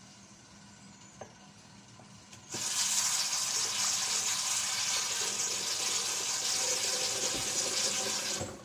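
Water running from a tap, turned on sharply about two and a half seconds in and shut off abruptly near the end, with a steady hiss. A small click comes shortly before it.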